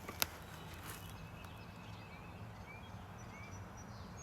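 Faint chirps and short whistled calls of several songbirds, with a single sharp click about a quarter second in.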